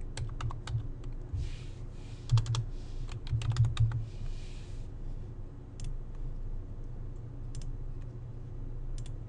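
Typing on a computer keyboard: a quick run of keystrokes over the first four seconds or so, then three separate mouse clicks spaced well apart as entries are picked from drop-down lists.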